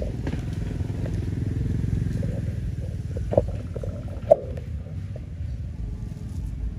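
A low engine rumble, like a passing vehicle, grows louder a second or two in and then fades. Two short sharp clicks come near the middle.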